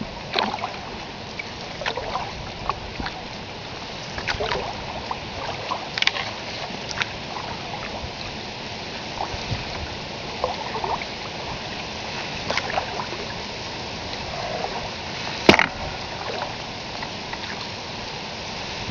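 Open canoe being paddled on a river: paddle splashes and drips and water lapping at the hull over a steady rush. Small irregular knocks and ticks run through it, with one sharp, louder knock late on.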